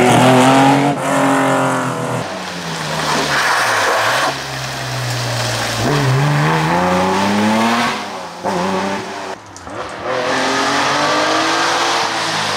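Classic Porsche 911 rally cars' air-cooled flat-six engines revving hard as several cars pass in turn. The pitch repeatedly climbs, then drops sharply at gear changes and lifts, with sudden jumps from one car to the next.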